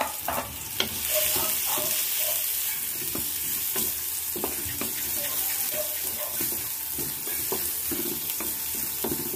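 Minced garlic sizzling in hot oil in a wok, growing louder about a second in, with a spatula scraping and tapping against the pan as it is stirred.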